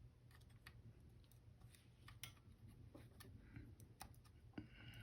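Near silence with faint, irregular small clicks and ticks of tools and tiny metal parts being handled while a contact is fitted inside a Canon A-1 camera; one slightly louder click comes near the end.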